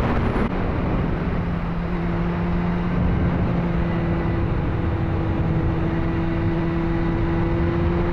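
Motorcycle engine running at a steady cruising speed, heard from the rider's seat with wind rushing past the microphone. The engine note drops about half a second in, then holds steady.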